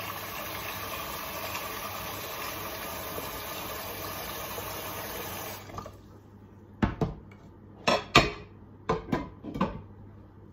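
Water running from a kitchen tap into a non-stick pot, stopping just under six seconds in. Then several sharp clanks of the pot being handled and a glass lid set on it, the loudest sounds here.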